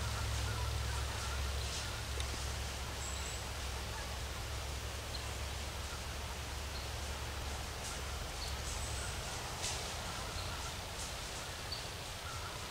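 Quiet woodland ambience: a few short, high bird chirps and faint ticks over a steady low rumble that drops away about nine seconds in.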